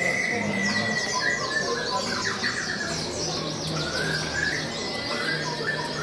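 Many caged contest songbirds singing at once: dense, overlapping chirps and trills with many quick falling whistles.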